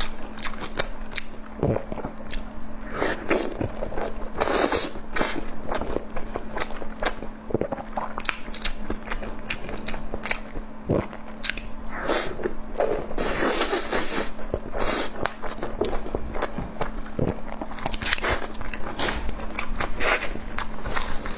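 Close-miked eating of chicken curry with noodles: steady chewing and biting with many small wet clicks and crunches, over a faint steady low hum.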